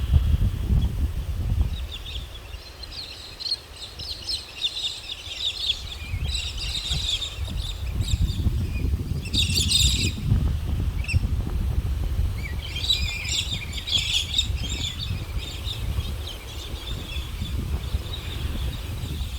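Wind buffeting the microphone with a gusting low rumble throughout, while small birds chirp in several quick bursts over the first three quarters.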